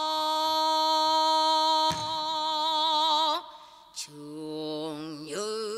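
A woman singing pansori: one long held note that swells into a wide, wavering vibrato and breaks off, then after a click a new phrase starts lower and climbs in pitch.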